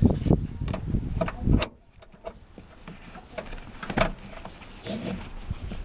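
Handling of a car seat's top tether strap and hook inside a car as it is clipped to the tether anchor: rustling and thumps for the first second and a half, then scattered clicks, with a sharp click about four seconds in.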